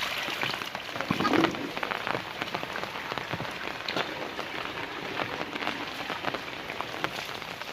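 Steady rain falling, with many sharp drops splatting on hard surfaces.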